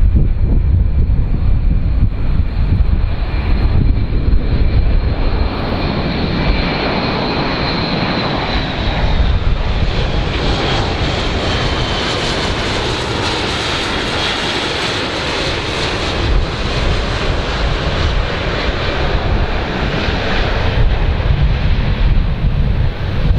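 Airbus A400M's four turboprop engines as the aircraft flies low past: a loud, continuous engine roar with a high whine that drops in pitch about seven seconds in, then a louder, brighter whine swelling through the middle.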